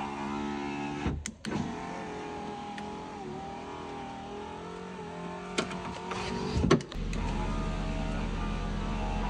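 2011 Ford Focus front passenger power-window regulator motor running as the freshly repaired window is tested, the glass travelling down in the door. The whine breaks off with clicks about a second in, runs on, then stops with clicks and a knock near seven seconds before the motor starts again.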